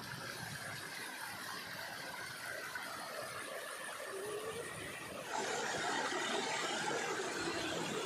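Water of a small stream rushing and splashing over rock at a low waterfall, a steady even rush that becomes louder a little over five seconds in.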